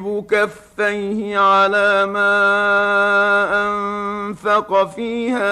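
A man reciting the Quran in slow, melodic tajwid chant, holding one long note through the middle before shorter syllables near the end.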